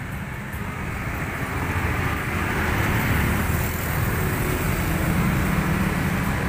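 Road traffic noise, with engines rumbling and tyres hissing, growing louder about two seconds in as vehicles pass close by.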